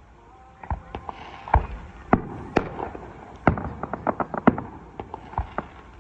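Aerial fireworks going off: a string of deep booms about every half second to second, with quick crackling pops in between.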